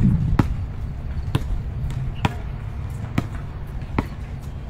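Basketball being dribbled on a hard court, five bounces at an even pace of about one a second, over a steady low rumble.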